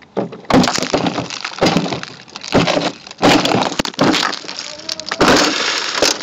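Car crash: a series of loud crashing impacts with breaking glass, roughly one a second, from about half a second in.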